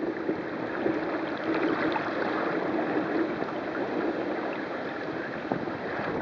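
Water rushing and splashing along the hull of a sailing kayak moving under sail through choppy water, a steady rush without breaks.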